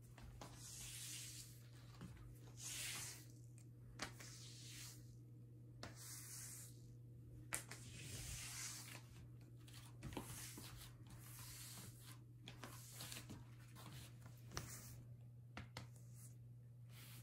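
Silicone-bladed floor broom (3JALBI) sweeping in a series of short, soft swishing strokes, with small sharp ticks from scattered cat litter grains, over a low steady hum.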